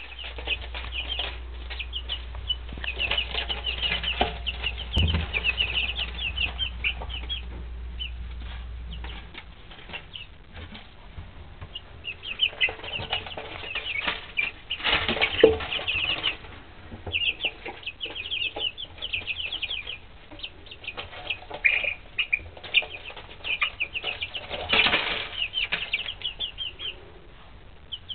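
Three-week-old Wyandotte and Easter Egger chicks peeping: runs of rapid, short, high chirps, broken by a few louder noisy bursts around the middle and near the end. A low hum stops about a third of the way in.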